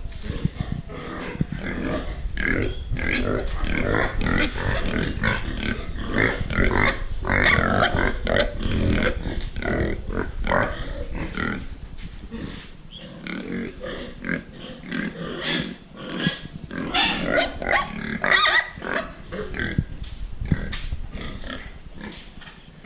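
A group of domestic pigs calling over one another: a dense, continuous run of short grunts and squeals. A low rumble sits underneath and stops about halfway through.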